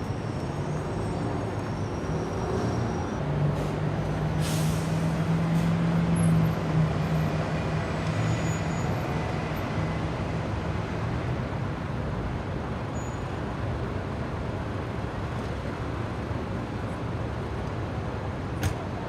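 City street traffic: a steady mix of passing vehicles. A large engine hums low and loud for several seconds in the first half, with a short hiss about four and a half seconds in. A single sharp click comes near the end.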